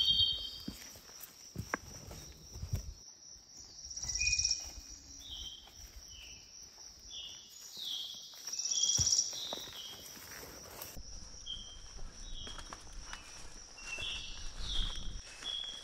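Insects chirping in the open, a steady high trill that swells louder twice, with a run of short high chirps repeating from about five seconds in. A few soft knocks come near the start and again about nine seconds in.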